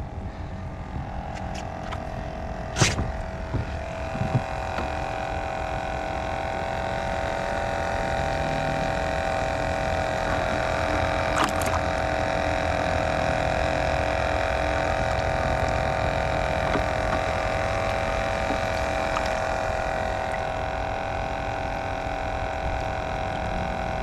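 Small battery-powered bait-bucket aerator pump humming steadily at one even pitch, getting louder as it comes close, with a sharp knock about three seconds in and lighter clicks a little later and near the middle.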